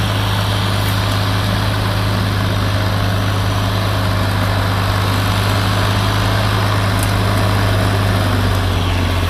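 Tractor engine running steadily, a deep even drone that holds the same pitch throughout.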